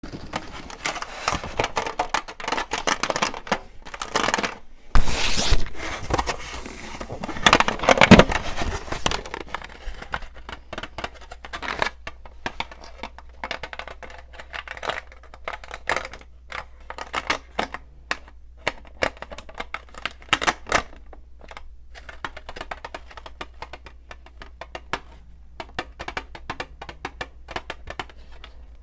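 Long fingernails tapping and scratching in quick, irregular clicks, with two louder, longer noisy bursts about five and eight seconds in.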